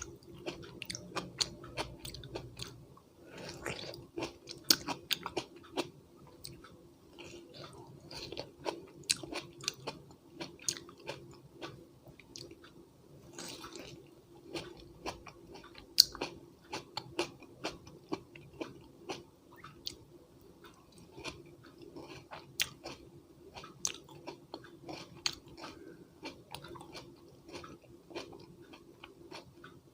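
A person chewing crisp raw vegetables: a continuous run of crunches and mouth clicks.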